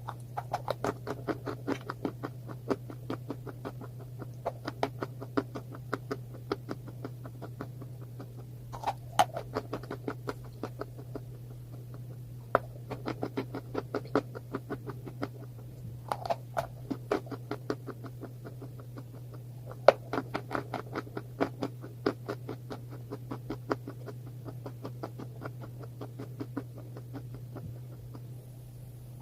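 Close-miked chewing of something crunchy: rapid, steady crunches a few per second, with a few louder, sharper bites along the way. A steady low hum sits underneath.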